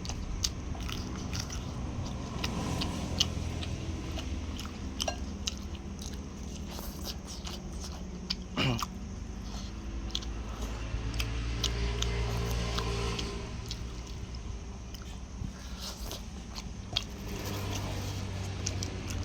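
A person chewing and biting into free-range chicken close to the microphone, with many small sharp crunching clicks throughout. A short falling glide comes about halfway through.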